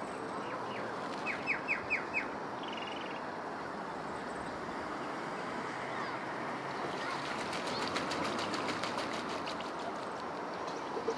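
Outdoor wetland ambience: steady background noise with birds calling. About a second and a half in there is a quick run of four or five sharp high chirps, then a short buzzy note. From about seven seconds in comes a fast, even rattle of ticks that lasts around three seconds.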